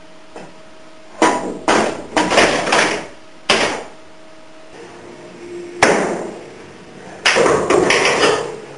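Pool balls clacking: the cue ball struck and balls knocking into each other and into the pockets, in a string of sharp hits bunched into several quick groups.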